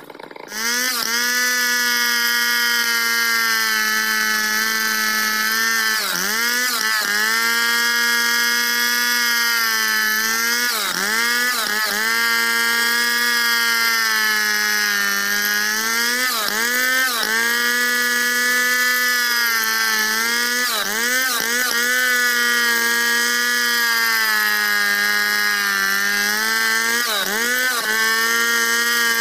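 Stihl 070 two-stroke chainsaw running flat out while ripping a log lengthwise into boards (freehand milling). It comes up to full revs within the first half second, then holds a steady high pitch that briefly dips and recovers, often in pairs, every four to five seconds.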